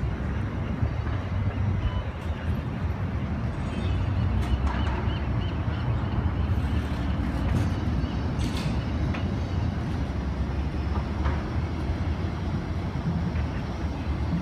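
1948 PCC streetcar running along its rails: a steady low rumble with a few short knocks.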